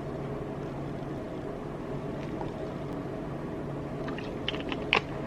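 Steady low background hum, with a few light clicks or taps near the end.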